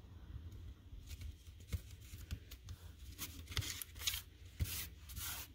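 Soft rustling and scraping of cardstock being slid and repositioned by hand on a card front, a series of short, faint paper strokes.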